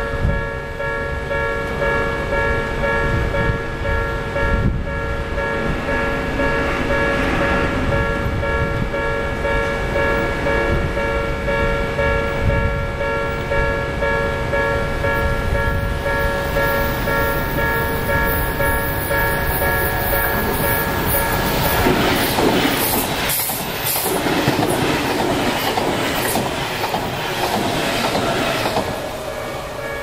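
Japanese level-crossing warning bell ringing with steady electronic tones. About 22 seconds in, an Odakyu 10000-series HiSE Romancecar express passes over the crossing for about seven seconds: loud rushing wheel-on-rail noise with a rapid clatter over the rail joints that drowns out the bell.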